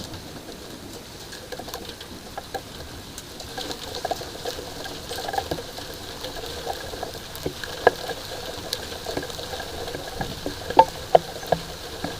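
Light rain pattering, with scattered drops striking a hard surface in sharp ticks; several louder drips come in the second half.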